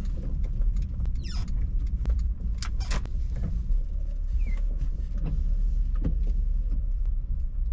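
Car driving slowly in the rain, heard from inside: a steady low rumble of engine and tyres, with scattered light clicks and knocks and a brief squeak about a second and a half in.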